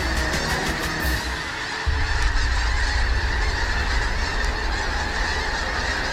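A huge flock of snow geese calling in flight overhead: a dense, continuous chorus of many overlapping honks.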